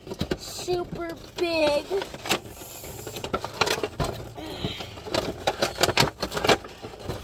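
A Funko Pop box being handled, with a string of irregular clicks, taps and crinkles from cardboard and plastic packaging.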